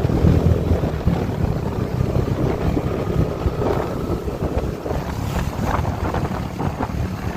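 Wind buffeting the microphone on a moving motorbike, over the low rumble of the bike and road, loudest near the start.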